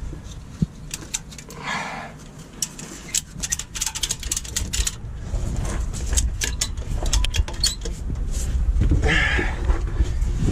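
Scattered metallic clinks and rattles of tools and steel parts being handled while working on a truck gearbox, over a steady low rumble.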